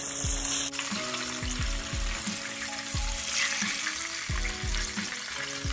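Breaded chicken breasts sizzling as they deep-fry in a pot of hot canola oil, a steady crackling hiss, while they are lifted out with tongs. Background music with a steady beat plays underneath.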